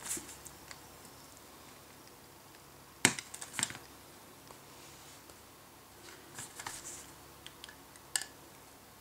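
Quiet hand work with a utility knife on thin RG 195 coax cable: a sharp tap about three seconds in, then a few faint ticks and scrapes later as the blade is worked along the cable's plastic jacket to slit it lengthwise.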